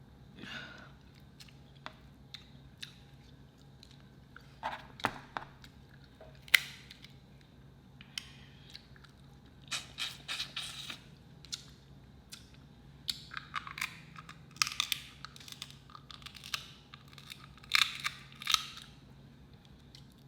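Seafood boil being eaten up close: shellfish shells cracked and torn apart by hand, with chewing. Irregular crunching and snapping comes in clusters, with short pauses between.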